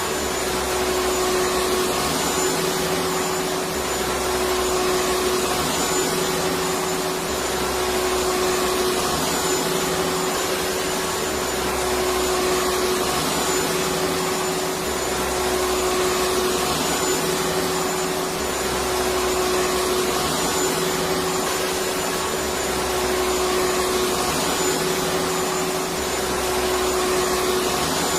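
Electric vacuum cleaner running steadily: a continuous rushing motor-and-airflow noise with a steady hum tone, and a faint low pulse about every two seconds.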